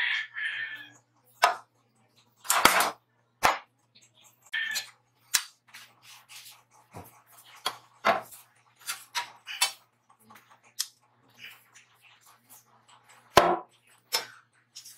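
Flat steel bar and a homemade motorcycle-chain scroll bender clanking and clicking as scrolls are bent and handled. The knocks are irregular and sharp, the loudest about a second and a half in, around three seconds in, and near the end.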